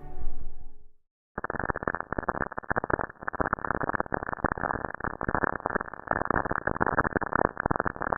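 Cassini spacecraft's radio recording of lightning in Saturn's atmosphere, played back as sound: dense crackling static in which each small spark is a lightning strike. It starts about a second in, after a fading tone and a brief silence.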